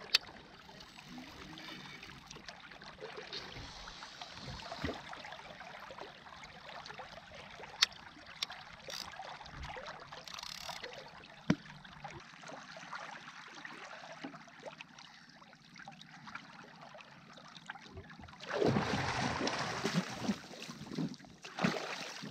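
Water trickling and lapping around a kayak, with scattered small clicks, while a fishing reel is wound in. Near the end comes a louder burst of splashing as a smoothhound is pulled from the water.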